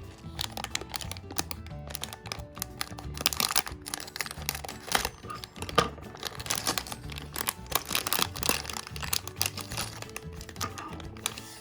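Small plastic LEGO pieces clicking and clattering as they are handled after a parts bag is opened, many quick irregular clicks over background music.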